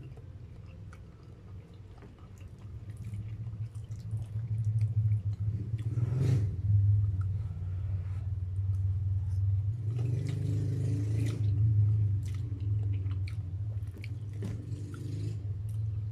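Close-up eating of spaghetti: wet chewing with small clicks and several noisy slurps of noodles, over a steady low hum.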